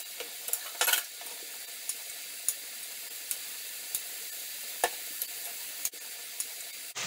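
Onion rings frying in fat in an open aluminium pressure cooker: a steady sizzle with scattered pops and crackles.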